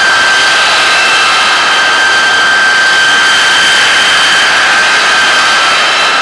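Boeing B-52H Stratofortress taxiing past, its eight Pratt & Whitney TF33 turbofan engines running: a loud, steady rush with a high whine.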